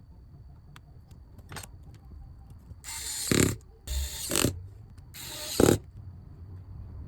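Three short rasping scrapes, each about half a second long and about a second apart, with a faint click before them; the scraping of hand work on a smartphone during a display replacement.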